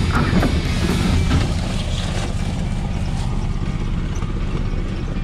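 Golf cart running steadily along a bumpy, overgrown trail, a constant low rumble from its drive.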